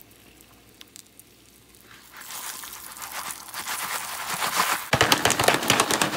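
Jiffy Pop popcorn heating in its foil pan on a stove burner: a faint hiss grows into a louder sizzle from about two seconds in. In the last second or so it turns into dense, rapid popping of kernels inside the foil.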